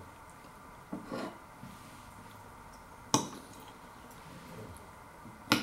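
A metal fork clinking against a ceramic dish a few times: a soft double knock about a second in, a sharp clink about three seconds in, and another sharp clink near the end.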